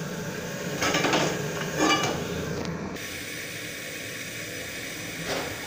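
Gas stove burner hissing steadily under a pot of water set on to boil, after two short bursts of handling noise about one and two seconds in.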